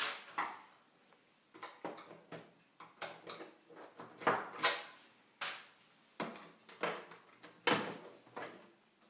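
Irregular clicks, knocks and clatter of plastic and metal parts of a PlayStation 3 fat console being handled and lifted apart during disassembly, with the loudest knocks about four and a half, five and a half and near eight seconds in.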